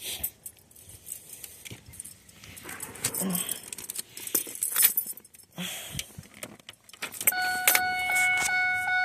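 Car keys jangling and clicking at the ignition of a 2002 Pontiac Grand Prix GT before a cold start. About seven seconds in the key is turned on and a steady electronic dashboard warning chime begins.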